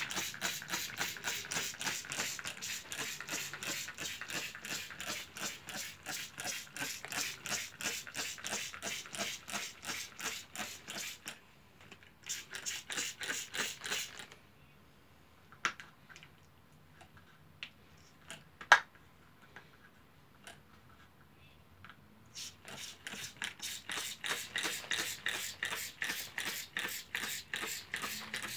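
Trigger spray bottle pumped in quick repeated squeezes, several hissing squirts a second, misting water onto sawdust. Past the halfway point the spraying pauses for several seconds, with a few faint clicks and one sharp tap, then resumes.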